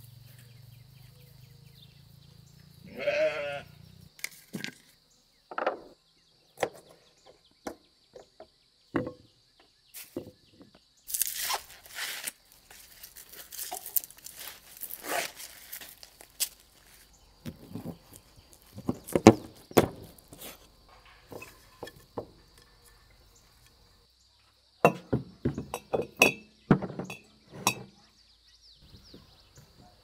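Scattered knocks, taps and clinks of hand food preparation, with one short pitched animal call about three seconds in. A faint steady high-pitched whine runs underneath.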